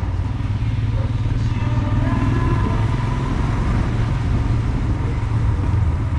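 Motorcycle engine running steadily at cruising speed, heard from the rider's seat.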